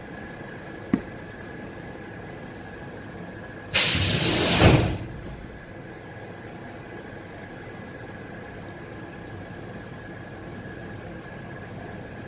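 Loud hiss of compressed air vented from the pneumatic system of an ET2M electric multiple unit, lasting about a second, a few seconds in, over the standing train's steady high-pitched equipment hum. A sharp click about a second in.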